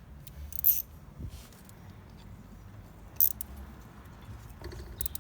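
Metal hand tools clinking: two sharp metallic clinks, about a second in and about three seconds in, with a few fainter handling taps between, as a 10 mm socket and ratchet are picked up and handled.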